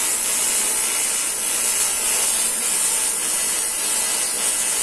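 TIG welding arc on aluminium, a steady, unbroken hiss.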